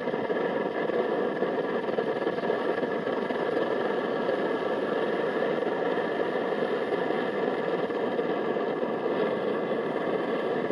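MSR XGK multi-fuel stove burning diesel with a steady rushing noise while it preheats, its flame still yellow and not yet running clean.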